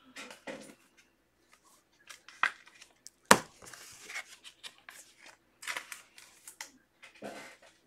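Trading card packs and cards being handled: crinkling and tearing of pack wrappers with rustles and small clicks, and one sharp snap a little over three seconds in.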